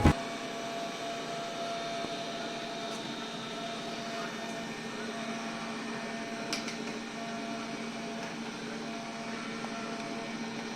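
MOVA robot vacuum cleaner running steadily, a constant motor hum with a held tone and a faint click about six and a half seconds in.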